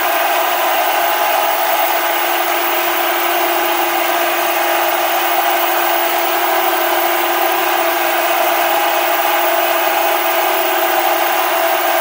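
Analog television static: a steady, loud hiss of white noise from an untuned TV, with a faint low hum beneath it.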